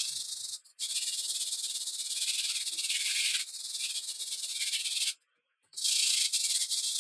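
Sandpaper rubbed quickly back and forth over a rusty steel hand-saw blade, a steady scratchy hiss, to take off surface rust. It stops briefly just under a second in and again about five seconds in.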